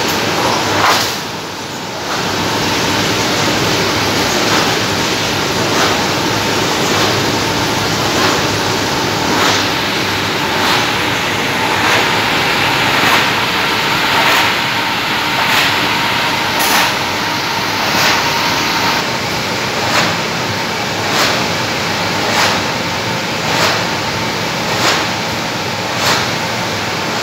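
Tinplate printing line with UV curing oven running: a steady mechanical hum with a sharp clack about every second and a quarter as printed tin sheets are conveyed and stacked.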